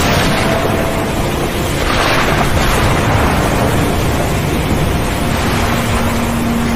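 Stormy sea ambience: a steady rush of wind and surf that swells briefly about two seconds in, with faint held tones underneath.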